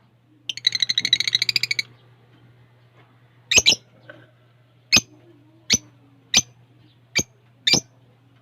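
Lovebirds calling: a rapid chattering trill lasting about a second, then six short, sharp, high chirps about a second apart.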